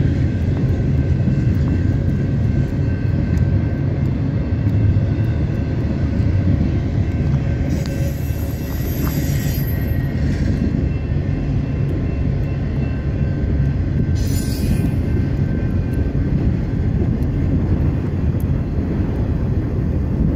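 Steady low rumble of a BNSF intermodal freight train of trailers on flatcars rolling past and away, with a faint steady high whine over it. Two short bursts of hiss come about eight and fourteen seconds in.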